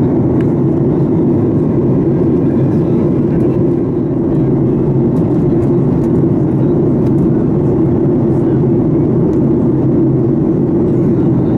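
Steady cabin noise of a Boeing 737 MAX 8 in flight, heard from a window seat: an even, deep rush of engine and airflow sound from its CFM LEAP-1B turbofans that holds at one level throughout.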